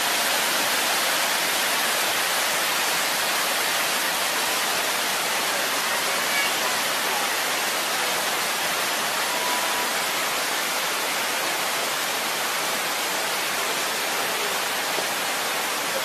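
A 30 m waterfall and the stream cascading below it, rushing steadily as an even hiss of falling water. The sound comes in abruptly at the start.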